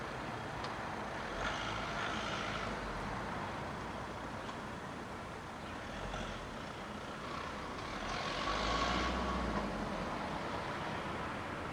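Steady outdoor background noise with road vehicles going by, swelling twice: about a second and a half in and again around eight seconds in.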